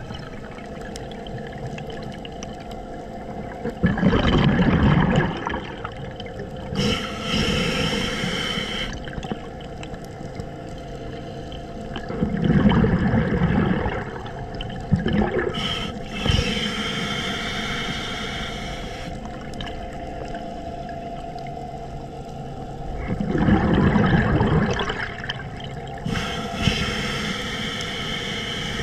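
Scuba diver breathing through a regulator, underwater: three slow breaths, each a gurgling rush of exhaled bubbles followed a couple of seconds later by the hiss of an inhalation through the demand valve.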